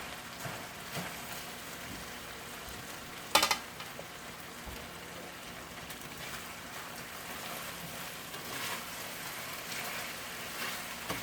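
Chicken wings sizzling in a pan, a steady hiss, with one sharp clack about three and a half seconds in.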